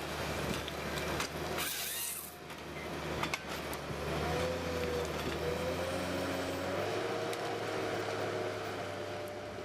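An engine running steadily, with a whine that rises slightly in pitch about halfway through.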